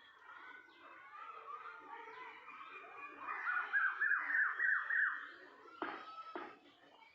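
A cuckoo calling: a quick series of about seven downslurred whistled notes, about four a second, after some softer warbling bird notes. Two short knocks follow near the end.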